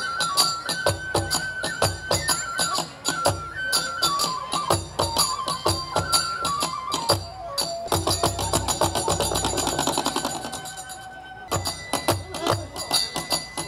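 Traditional-style music: a flute-like melody stepping downward in held notes over steady, rhythmic percussion, with a denser, busier passage about eight seconds in.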